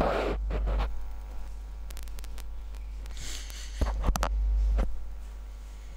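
Steady low electrical hum, with a short rustle at the start and a few sharp clicks and a soft thump about four seconds in.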